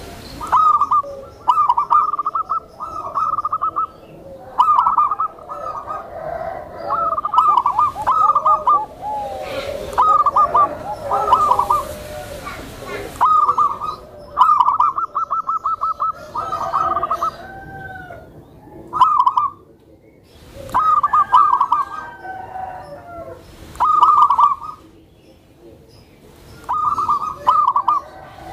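Zebra doves (perkutut) cooing: a dozen or so short phrases of rapid staccato notes, one every second or two, with softer lower calls between them.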